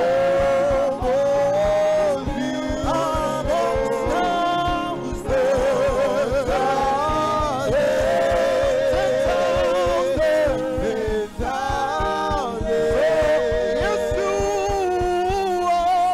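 Live gospel worship song: voices of a lead singer and choir holding long notes with vibrato, over band backing with a steady beat.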